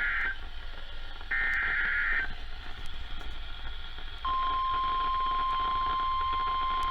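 Emergency Alert System SAME header: two short bursts of screeching two-pitch digital data tones. About four seconds in, the steady single-pitch 1050 Hz National Weather Service attention tone starts and holds, signalling the warning about to be read.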